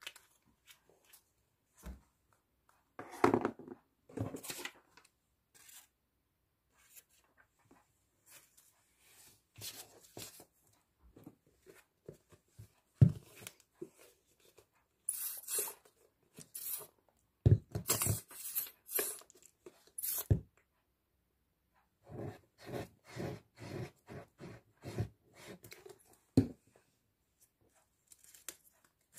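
Craft paper and card being handled, with scattered rustles, scrapes and taps. Later comes a run of short rubbing strokes, about two a second, from a glue stick worked across the card.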